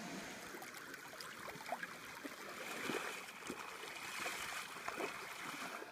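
Shallow flowing water trickling over rock, with irregular splashes from feet wading through it.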